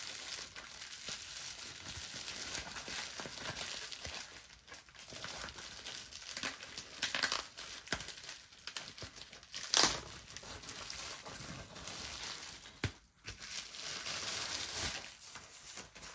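Plastic bubble-wrap bag crinkling as it is handled and pulled off a small desktop speaker, with a few sharper crackles, the loudest about ten seconds in.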